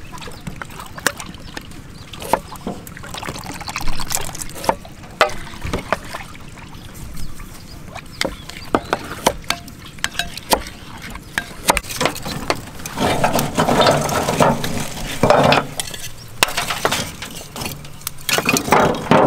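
Cooking sounds: liquid being stirred and poured, with many scattered clicks and clinks of utensils.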